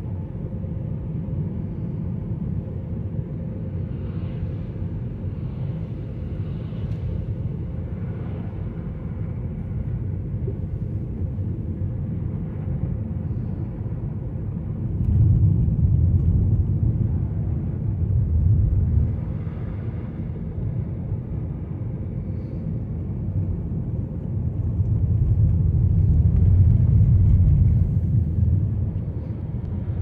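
Car driving on a wet, snowy road, heard from inside the cabin: a steady low rumble of tyres and engine. It swells louder twice, around the middle and again near the end.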